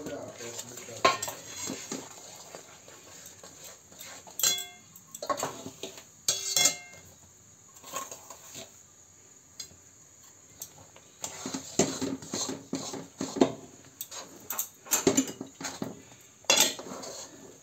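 A steel measuring cup knocking and clinking with a ring against a metal kadhai as rice flour is tipped into boiling water, then a metal spoon scraping and knocking in the pan, busier over the last third, as the flour is stirred in.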